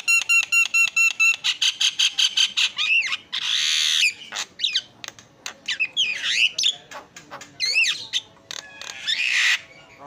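Javan myna singing loudly: a fast run of evenly repeated chips, then rapid chattering, with harsh rasping calls about three and a half and nine seconds in and whistled rising and falling notes between.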